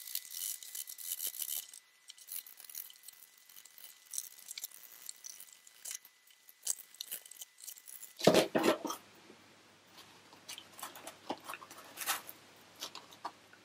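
Saw blade rasping through a foam wing core in quick strokes for the first couple of seconds, then scattered light scrapes and clicks as the cut is worked, with a louder knock about eight seconds in.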